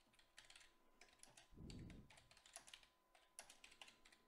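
Faint typing on a computer keyboard: a quick, irregular run of key clicks, with a brief low rumble about a second and a half in.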